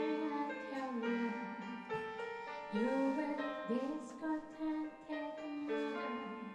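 Live band music: a woman singing a melody with long held notes that slide into pitch, over electric keyboard accompaniment.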